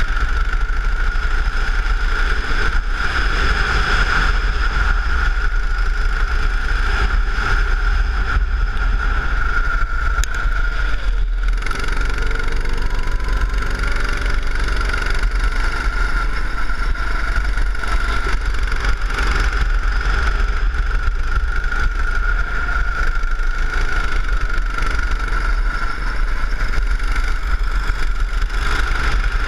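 Go-kart engine running hard at a steady, high note with small rises and falls through the corners, with a constant deep wind rumble on the onboard microphone.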